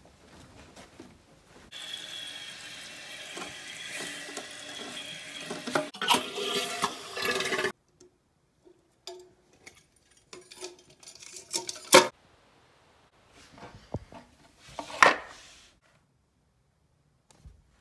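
Water running for several seconds, cut off suddenly, followed by scattered sharp clicks and knocks of plumbing parts being handled.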